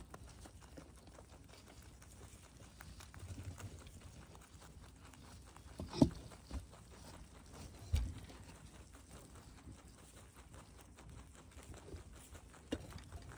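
Young rabbits chewing fresh grass: a low, steady patter of small nibbling ticks and rustling of stalks. A few louder knocks stand out, about six and eight seconds in.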